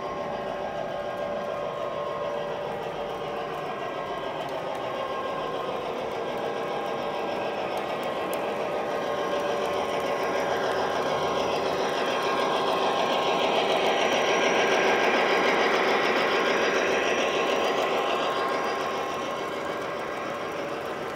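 O gauge model train running on three-rail track: the locomotive's motor whirring and the wheels rolling over the rails. It grows louder as the locomotive approaches, is loudest as it passes close by, then drops back.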